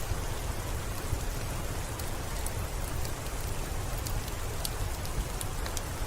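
Steady rain falling, a continuous hiss with a low rumble, mixed with a wood fireplace whose crackle comes through as scattered small sharp ticks.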